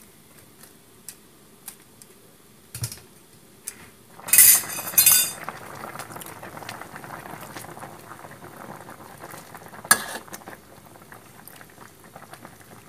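Coconut milk and palm-sugar syrup simmering in a wok with soft bubbling. About four seconds in, two loud splashing clatters as the fried banana pieces are tipped in from a wire frying basket, then steadier bubbling while a spatula stirs, with one sharp knock of the spatula on the wok later on.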